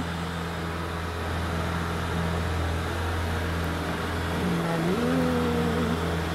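Steady low engine hum, heard from inside a vehicle cab, while a travelift boat hoist moves past.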